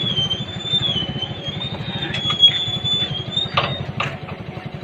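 Grass cutter's small petrol engine running steadily on test after carburetor work, with a high wavering whine over the engine and two sharp clicks near the end.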